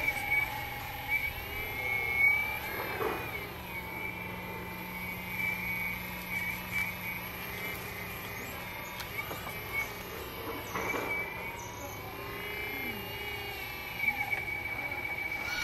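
Hydraulic pump of a 1/14-scale, full-metal, fully hydraulic RC excavator (RST Models CAT 330F) whining steadily, its pitch dipping and bending as the boom, bucket and swing take load. Clatters of soil and bucket come about three seconds in and again around eleven seconds, with another sharp sound near the end.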